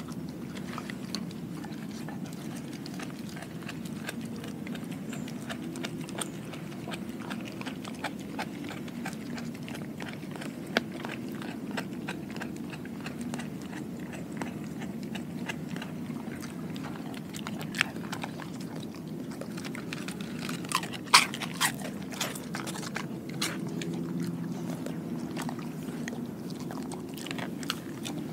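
A dog chewing raw food, pork skin among it, from a glass bowl: wet chewing and biting with scattered crunches and clicks, a cluster of sharper clicks about three-quarters of the way in.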